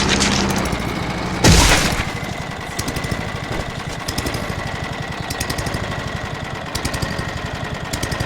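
Lawn mower engine running steadily, with a single loud crash about a second and a half in.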